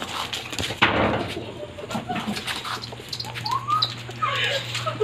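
Short high-pitched squeaks during a dog's fight with a rat it has caught, with a burst of scuffling noise about a second in. A steady low hum runs underneath.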